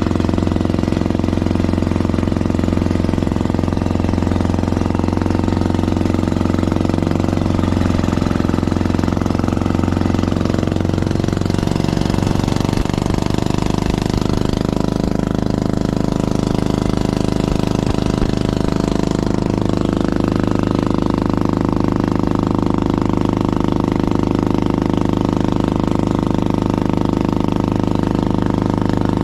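Engine of a motorized outrigger boat (bangka) running steadily under way, with a slight change in its note about twelve seconds in.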